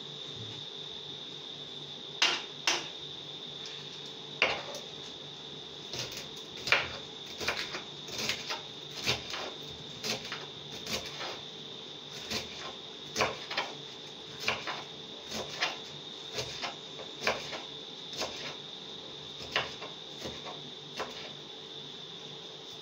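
Kitchen knife chopping green onions on a wooden cutting board: irregular sharp knocks, one or two a second, some in quick pairs. A steady faint high-pitched whine runs underneath.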